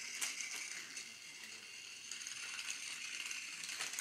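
Battery-powered toy Thomas the Tank Engine running round plastic track, its small geared motor giving a steady high whirring rattle, with a sharp click about a quarter of a second in.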